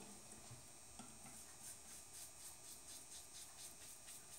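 Faint, quick scratching of a Lord safety razor with a PermaSharp blade cutting lathered stubble in short strokes, about four a second, starting about a second and a half in.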